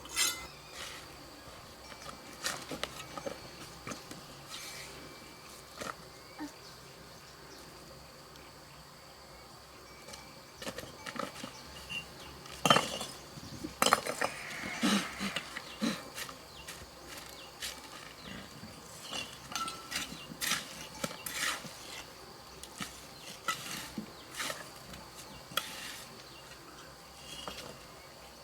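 Irregular knocks and clinks of hard objects being handled or struck. They are sparse at first and come more often from about ten seconds in, over a faint steady high hum.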